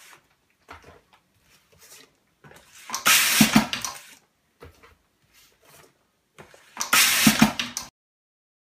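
Semi-automatic pneumatic labelling machine for round bottles running two labelling cycles about four seconds apart, each a hiss with a low hum under it lasting a little over a second. Faint knocks of bottles being handled come between them.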